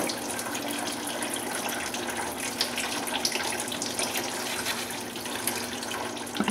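Engine coolant steadily trickling out from behind a partly removed water pump on a BMW E46 straight-six into a catch bucket, with a small knock near the end.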